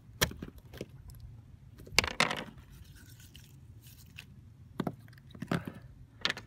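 Sea urchin being cleaned by hand on a deck: its spines scraping and knocking against the surface in a string of short scrapes and knocks, the loudest a rough scrape about two seconds in.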